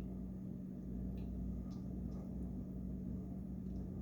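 Steady low hum with a few faint, short clicks about one to two seconds in; no pop goes off.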